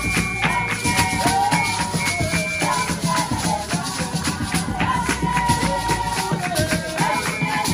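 Group of girls singing a Xhosa traditional song in unison with rhythmic hand-clapping, over the shaking of ankle rattles worn by a stamping dancer.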